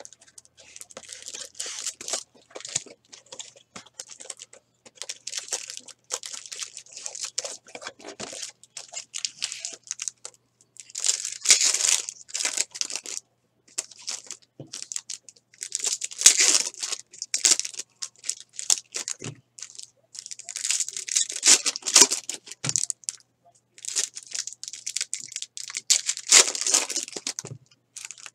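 Foil trading-card pack wrappers from a Bowman Chrome hobby box being torn open and crinkled by hand. Four louder rips come about five seconds apart, with softer crinkling and rustling of wrappers and cards between them.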